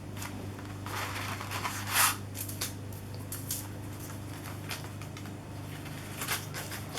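Plastic stencil sheets being handled and shuffled: soft rustles and light taps, the loudest about two seconds in, over a steady low hum.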